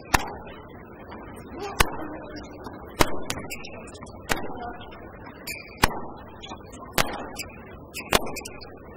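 Tennis ball struck back and forth by rackets in a baseline rally: seven sharp pops about a second and a half apart, over low background voices.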